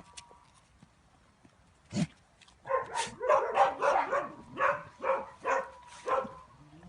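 A dog barking: one short bark about two seconds in, then a run of about seven barks at roughly two a second.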